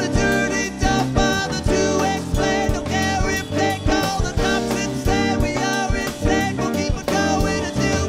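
Live band music: drum kit, electric guitar, bass and keyboards playing together over a steady, busy beat.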